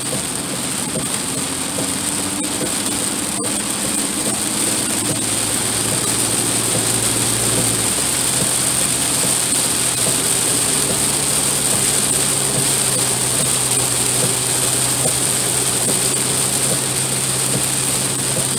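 Inside a truck cab driving in heavy rain: a steady hiss of rain on the roof and windshield over the engine and road noise. The engine note rises a little about eight seconds in.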